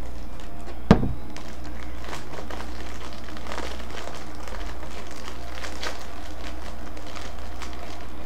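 Plastic wrapper of a baseball card rack pack being torn open and crinkled in the hands, scattered small crackles throughout, with one sharp knock about a second in, over a steady low hum.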